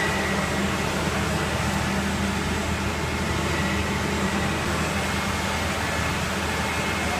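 Steady low hum and hiss of running machinery in a winery's stainless-steel tank hall.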